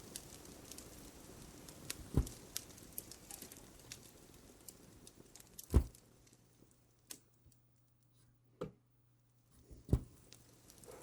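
Fireplace crackling: a low hiss with a few sharp pops, the loudest about six and ten seconds in. The hiss fades out for a few seconds near the end.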